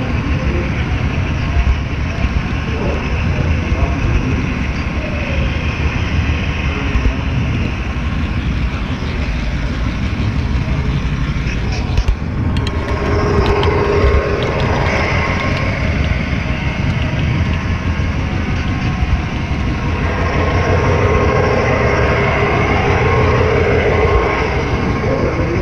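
HO-scale model train rolling on track, heard from a camera riding on one of its cars: a steady close rumble and clatter of the wheels and rails, busier in the second half.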